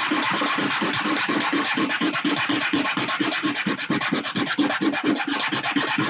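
Sandpaper rubbed against a 3D-printed plastic model part in quick, even back-and-forth strokes, several a second, to smooth and score the part's surface before gluing.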